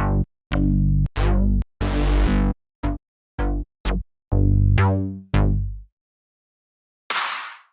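Synthwave drum-kit one-shot samples played one after another: about nine short, low, pitched drum hits with small gaps between them. After about a second of silence, a bright, noisy hit comes near the end.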